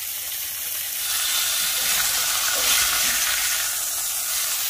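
Flour-dredged chicken breast cutlets frying in butter and oil in a stainless steel skillet: a steady sizzle that grows louder about a second in.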